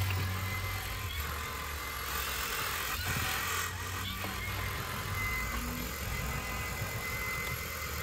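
AEG Ultimate 8000 cordless vacuum, used as a handheld with a crevice nozzle, running steadily over car carpet: a rush of suction air with a thin, steady high whine from the motor.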